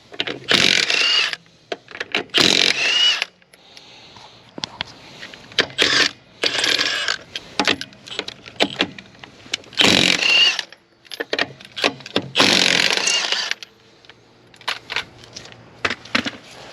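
Power tool running in about six short bursts, each a whine that rises at its end, with scattered clicks between the bursts: a power tool, most likely an impact wrench, running a wheel's lug nuts off.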